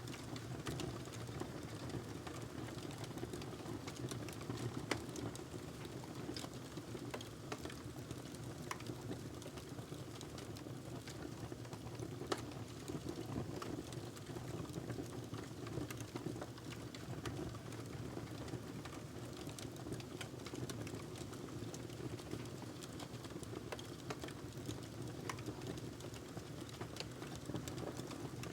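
Wood fire crackling in a fireplace: scattered sharp pops and snaps over a steady low rumble of flames.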